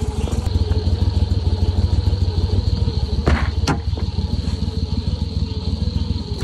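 Go Devil surface-drive mud motor running steadily, with two short knocks a little past the middle.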